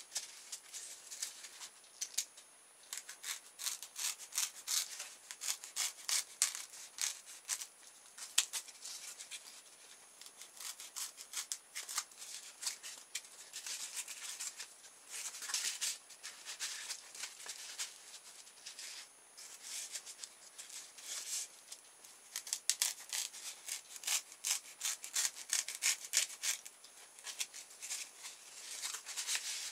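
A sharp knife cutting and paring blocks of foam packaging: quick, irregular scraping strokes of the blade through the foam, in clusters separated by short pauses.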